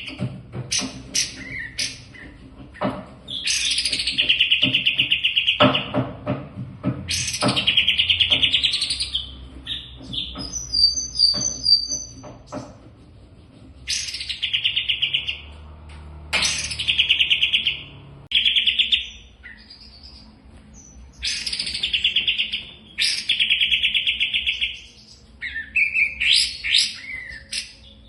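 A songbird singing in repeated phrases: rapid buzzy trills about two seconds long, each opened by a few sharp chips, with short pauses between them.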